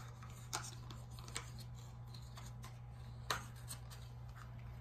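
Soft rustles and a few short clicks of cosmetic products being handled while the next item is taken from the box, over a steady low hum.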